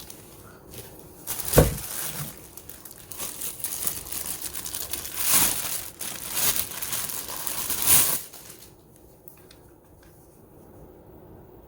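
Packaging crinkling and rustling as it is handled and unwrapped, with a sharp knock about a second and a half in; the rustling stops about eight seconds in.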